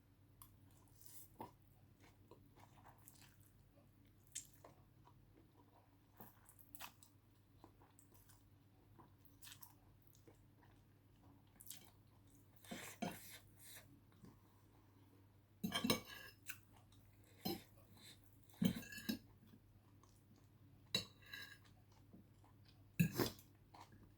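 Close-miked mukbang chewing and eating: a person chewing food with scattered crunches and small clicks of cutlery against a dish, louder and more frequent in the second half.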